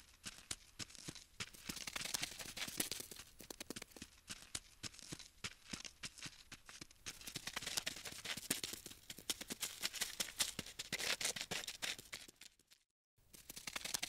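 Scratchy crawling-insect sound effect: fast dry clicks and scratches that swell and fade in waves, stopping briefly near the end before starting again.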